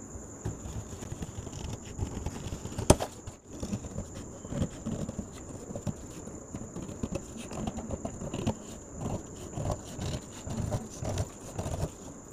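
Large tailor's scissors cutting through a paper pattern: an irregular run of snips and paper rustling, with one sharp click about three seconds in.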